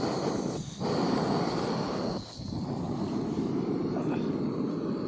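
Backpacking gas stove burner lit and running with a steady roaring hiss, which dips briefly about two-thirds of a second in and again just after two seconds.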